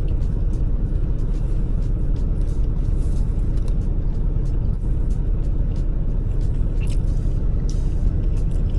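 Vehicle engine idling, a steady low rumble, with a few faint clicks near the end.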